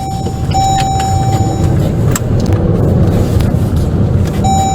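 A moving car's engine and road rumble, with a steady high electronic tone that sounds for about a second near the start and again near the end, and a few sharp clicks in between.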